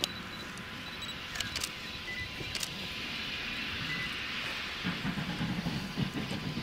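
Distant double-headed steam train, locomotives NM25 and W22, approaching as a faint low rumble under a steady open-air hiss, growing stronger about five seconds in. Short electronic camera beeps and a few sharp shutter clicks sound over it.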